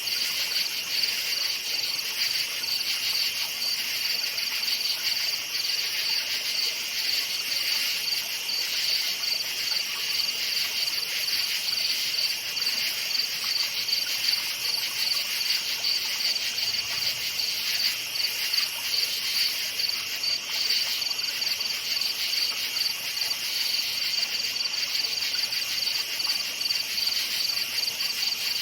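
Crickets chirping in a steady chorus at night, a continuous high-pitched pulsing trill.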